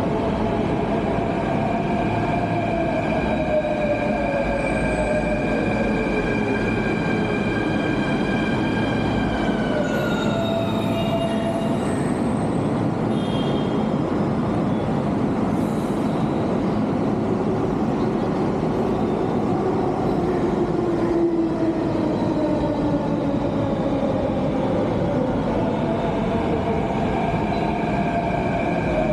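Metro trains' electric traction motors whining over the steady rumble of the train. Several tones fall together in pitch over the first ten seconds as a train slows, and later more whining tones glide down and back up as trains move along the platform.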